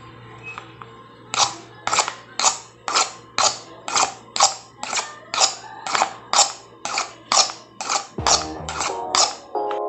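Sharp clicks repeating evenly, about two a second, over a faint steady hum. Music with pitched notes comes in near the end.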